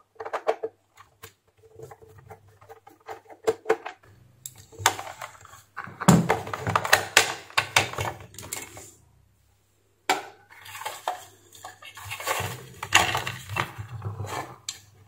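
A run of small clicks as a screwdriver works the screws of a steam iron's plastic rear cover, then longer spells of hard plastic clattering and rattling as the cover is pulled off and the opened iron and its cord are handled.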